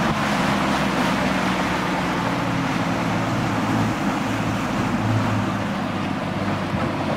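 Outboard motor of a small fishing boat running steadily under way, with wind and rushing water.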